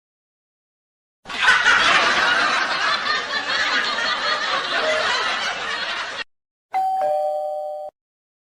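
Doorbell chime sound effect: a two-note ding-dong, the second note lower, near the end. Before it comes a noisy sound effect of about five seconds that cannot be named.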